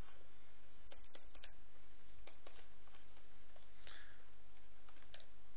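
Steady low hum with a few faint, scattered ticks from a stylus tapping and drawing on a graphics tablet.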